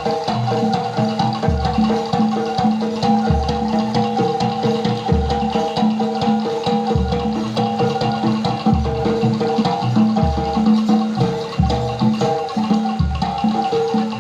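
Jaranan gamelan music: pitched metal percussion repeats a melody over deep drum or gong strokes about every two seconds.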